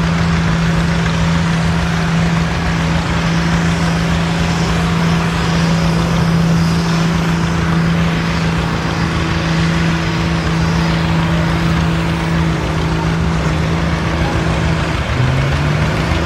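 Home-built pulling tractor's D-Series 380 diesel engine running hard at steady high revs under load, its pitch dropping sharply about fifteen seconds in. The turbo is failing and, in the commentator's words, is definitely on the way out.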